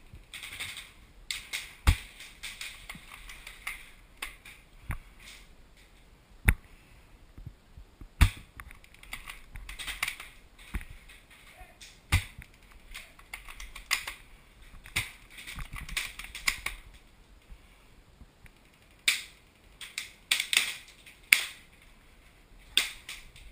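Irregular sharp clicks and knocks of airsoft gunfire around a small plywood building, the loudest about 2, 6 and 8 seconds in and a quick cluster near the end, with short bursts of rustling in between.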